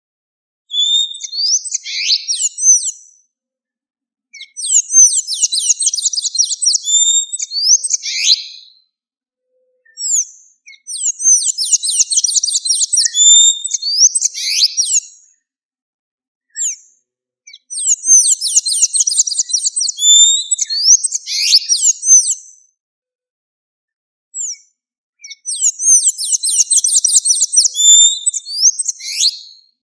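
Blue-gray tanager (sanhaço-da-amazônia) singing: five bouts of rapid, squeaky, high notes, each bout lasting two to six seconds, with short pauses between them.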